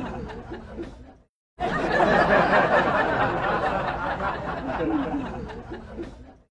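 Men talking and laughing over street noise. The sound cuts out completely for a moment just over a second in, then resumes.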